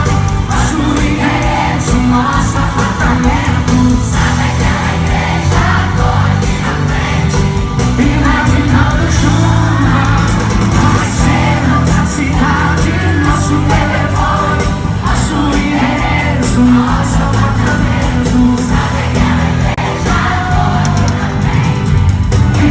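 Live sertanejo pop concert music: a band playing and a singer's voice, with the crowd's voices and whoops mixed in.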